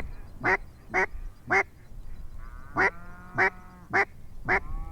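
A steady run of loud mallard hen-style quacks, about two a second, in two runs separated by a short pause about two seconds in.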